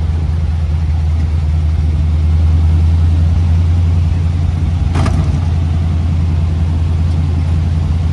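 1932 Ford roadster's flathead V8 running steadily under way, a loud low engine drone with road and wind noise, heard from the driver's seat of the open car. There is a single brief knock about five seconds in.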